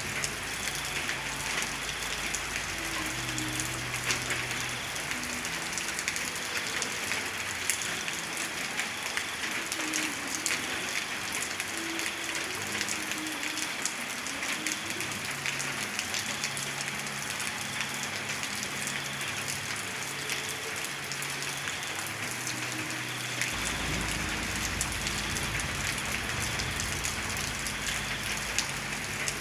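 Steady rain falling, with a constant hiss and many separate drop hits.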